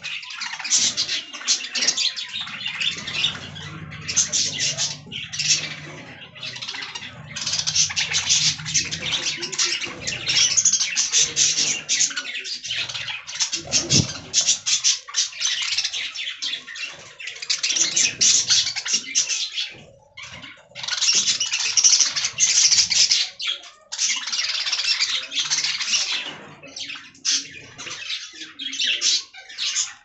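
A flock of budgerigars chattering and warbling together in dense, rapid high chirps, with a brief lull about twenty seconds in.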